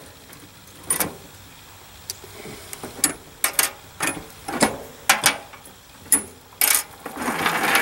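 Sharp metal clicks and knocks from the orange steel Log Ox tool as it is handled and its parts are fitted, about eight irregular strikes, with a short scraping rustle near the end.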